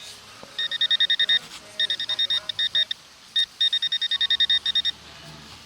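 Metal detector beeping in quick pulses of one high tone, about ten a second, in three runs with short breaks, as it sounds off over a buried metal target.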